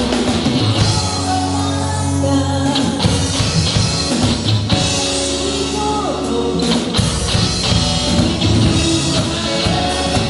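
A rock band playing a cover song, with drums, bass and guitar under a sung vocal line.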